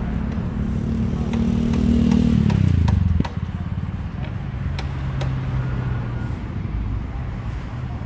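A motor vehicle engine running, dropping in pitch and level about three seconds in, then a lower steady hum. A few sharp knocks sound in the middle.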